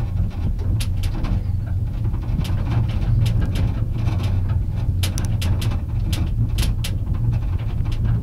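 Steady low rumble and hum of a moving gondola cabin, with irregular light clicks and rattles throughout.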